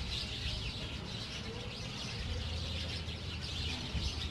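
Many small birds chirping together over a steady low hum.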